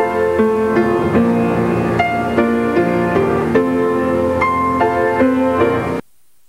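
Piano music, a run of struck notes and chords, that cuts off abruptly near the end, leaving only faint tape hiss.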